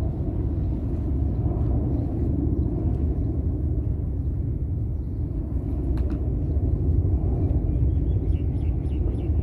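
Steady, fluctuating wind rumble on the microphone, with a single sharp click about six seconds in and a few faint high chirps near the end.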